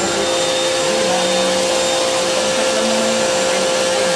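A machine running steadily: an even whirring hiss with a constant hum, unchanged throughout.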